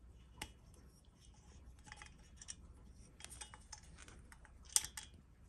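Faint, scattered small metal clicks and taps as fingers work the needle bearing out of the piston's wrist-pin bore in a two-stroke engine cylinder, with a sharper click near the end.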